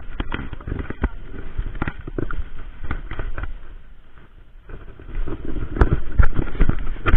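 Camera handling noise: a fabric jacket sleeve and arm brushing and knocking against the camera, giving irregular rustles and knocks. It eases briefly around four seconds in, then comes back louder and denser.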